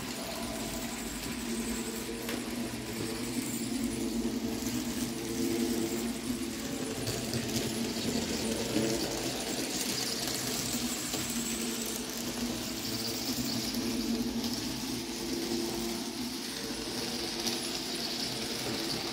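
N-scale model train running fast on its track, the small electric motor of the BB304 model locomotive whirring with a steady hum under a higher hiss of wheels rolling on the rails. The controller is turned up to speed 7 of a maximum 10.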